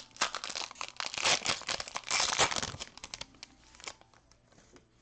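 Crinkly foil wrapper of a Panini Prizm Premier League trading-card pack being torn open and pulled off the cards. The crackling is loudest in the first half and dies away after about three seconds.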